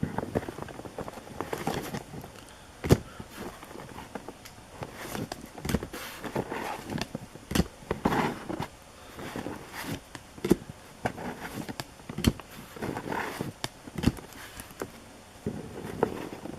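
Baseball card packs being opened and the cards handled: foil wrappers rustling and cards tapped and slid against each other, with irregular sharp clicks every second or two.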